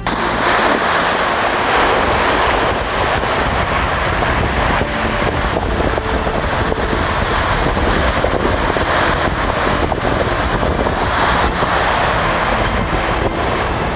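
Strong wind buffeting the microphone over breaking sea surf, a steady loud rush.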